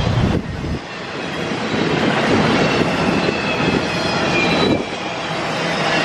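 Freight train cars rolling past: a steady rush of wheels on rail with faint high wheel squeal. A heavy low rumble drops off sharply about half a second in.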